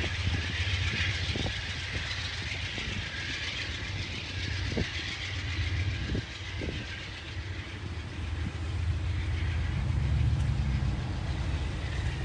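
Train rolling past with a steady low rumble and a few scattered sharp clicks from the wheels on the rails.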